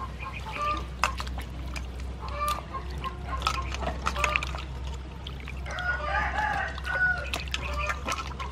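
Chickens clucking in the background, with a longer call about six seconds in, over the splashing and swishing of hands rubbing vegetables clean in a metal bowl of water.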